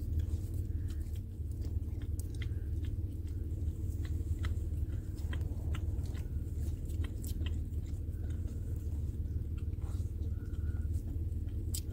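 A pit bull puppy licking soft-serve ice cream from a cone: a scattered string of small wet smacks and clicks from the tongue and mouth, over a steady low hum inside the car.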